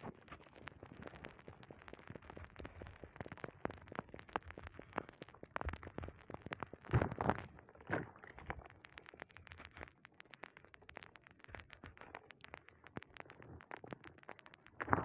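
A dry, crumbly block crushed and crumbled by hand in a basin of muddy water: dense crisp crunching and crackling, with louder crunches about seven and eight seconds in.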